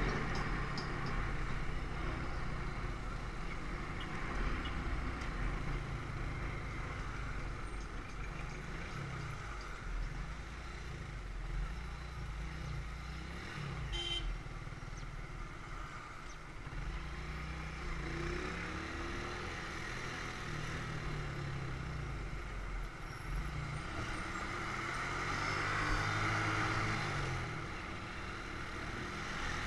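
Motorcycle engine running on the move, its revs rising and falling over steady road noise and surrounding traffic. A single sharp click comes about fourteen seconds in.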